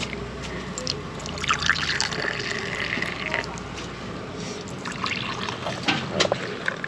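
Milky tea poured from a stainless steel jug into ceramic cups, a trickling stream filling the cups in two spells.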